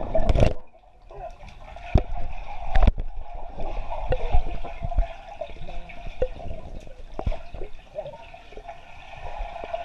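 A splash as the camera plunges into swimming-pool water, then muffled underwater gurgling and water movement from swimmers, with scattered sharp knocks, heard through the camera's waterproof housing.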